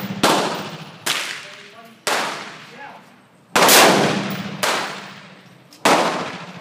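AR-15 rifle fired shot by shot, six sharp cracks at uneven gaps of about a second, each trailing off in an echo that dies away over roughly a second.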